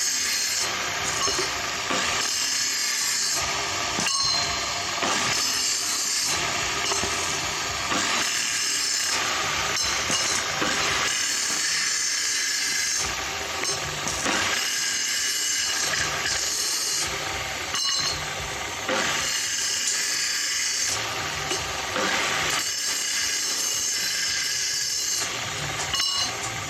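Steady hissing metalworking noise with brief dips every second or two.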